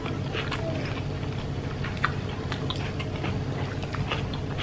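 Close-miked chewing of ayam geprek (smashed fried chicken) with rice and sambal: wet mouth smacks and small irregular clicks, over a steady low hum.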